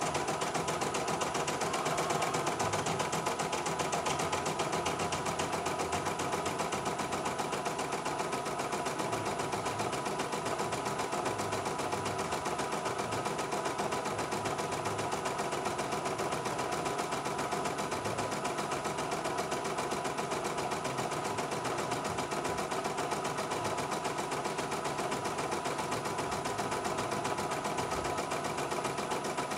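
CNY E900 portable embroidery machine stitching a design, its needle running at a fast, even rhythm.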